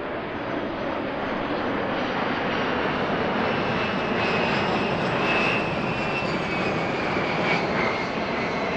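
Jet engines of a KC-135 tanker and three A-10 Thunderbolt II jets passing overhead in formation: a steady rushing engine noise with a high whine that drops slightly in pitch near the end.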